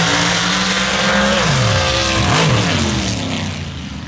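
Two modified drag-racing trucks, a Chevy S10 and another race truck, at full throttle down a dirt drag strip. Their engine notes climb, drop and climb again about two seconds in, then fade as the trucks pull away.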